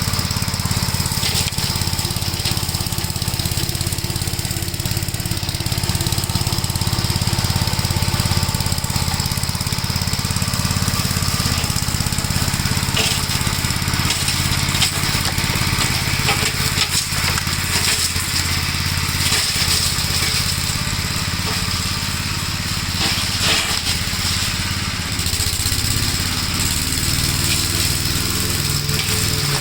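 1956 Gravely Model L walk-behind tractor's single-cylinder engine running steadily while driving its brush hog mower, with a few sharp knocks scattered through.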